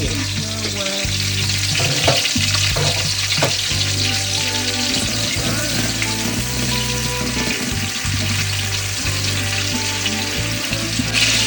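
Chopped onion and green chillies frying in hot oil and ghee in a pan: a steady sizzle, with a spatula stirring and scraping now and then. The sizzle grows louder and brighter about a second before the end.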